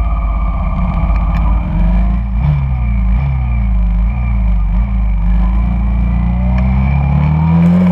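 Honda Shadow cruiser's V-twin engine running in traffic, its pitch dipping and rising several times, then climbing for a few seconds and dropping off sharply near the end. Scooters and motorbikes of the surrounding traffic run close by.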